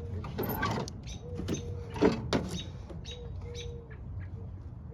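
A bird calling outdoors in a series of short, low, hooting notes, several seconds apart. A few sharp clicks or knocks sound in between.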